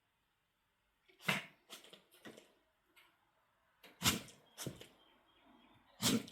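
A pet sneezing: a run of about seven short, sharp sneezes. The loudest come a little over a second in, about four seconds in and about six seconds in.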